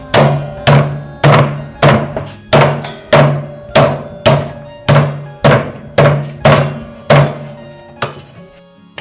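Heavy chopping, about a dozen evenly paced blows, roughly two a second, stopping about seven seconds in; the chops are typical of a cleaver on a wooden board. Background music plays underneath.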